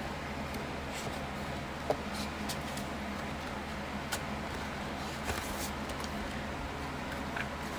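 Light clicks and soft rustles of a laminated plastic challenge sheet and a faux-leather budget binder being handled on a desk, a few scattered ticks, over a steady low background hum.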